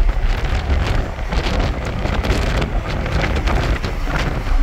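Strong wind buffeting the microphone in irregular gusts, a loud low rumble.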